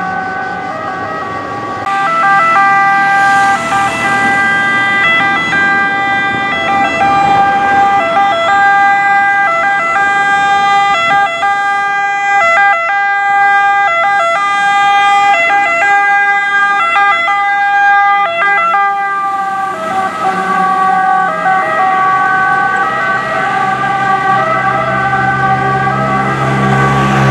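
Two-tone siren of a Vigili del Fuoco MAN TGS 18.320 fire tanker, switching back and forth between two pitches as the truck runs on an emergency call. It grows louder as the truck approaches and is loudest as it passes, with road traffic underneath.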